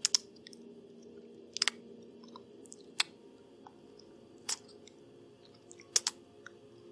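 Close-up mouth sounds from the performer acting out a vampire bite: sharp smacking and sucking clicks in small clusters, about one every second and a half, with softer ticks between them.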